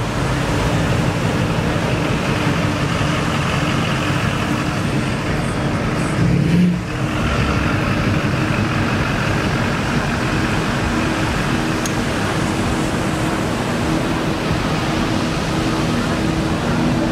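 Lifted 2004 Duramax LLY diesel pickup driving slowly on beach sand, its engine running steadily, under heavy wind noise on the microphone.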